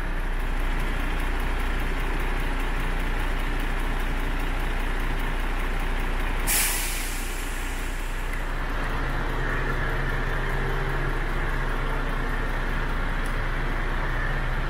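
MAN TGX 26.440 tractor unit's 440 bhp common-rail diesel engine idling steadily. About six and a half seconds in, a single loud, short hiss of compressed air as the truck's air system vents.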